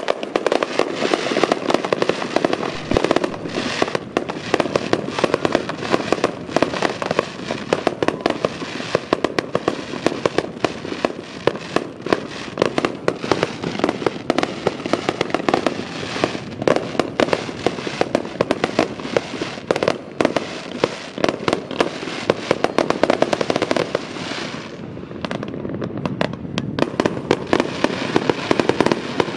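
Aerial fireworks bursting and crackling in a dense, rapid barrage of sharp bangs and pops. It eases briefly near the end, then picks up again.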